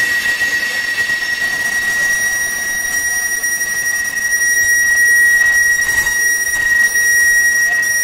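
Freight cars of a mixed freight train rolling past on a curve, their wheels giving a steady high-pitched squeal against the rail over the rumble of the cars.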